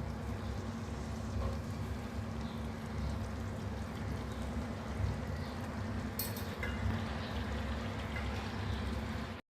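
Chicken kasha cooking in a pan, a steady hiss over a low rumble with a few faint clicks, cutting off suddenly near the end.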